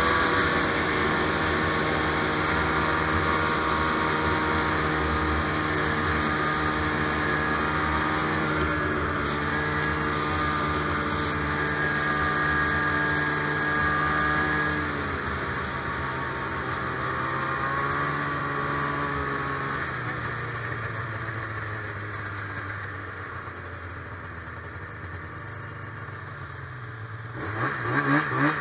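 Two-stroke Polaris snowmobile engine running at a steady trail speed, then easing off and dropping in pitch as the sled slows. Near the end come a few quick, louder revs.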